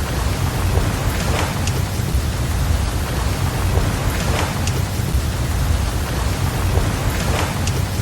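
Ambient mix of steady heavy rain over a deep low rumble, with a swell rising and falling about every three seconds like breaking ocean waves.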